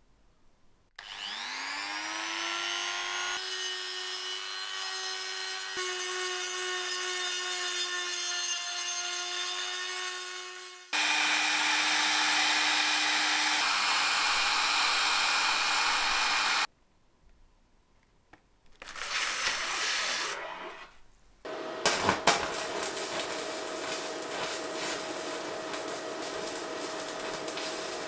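An electric heat gun starting up, its motor whine rising over about two seconds before it settles into a steady blowing. About eleven seconds in it steps up to a louder setting, then it cuts off sharply. Near the end, after a few sharp clicks, a steady hiss with a hum from welding the cracked ring after the preheat.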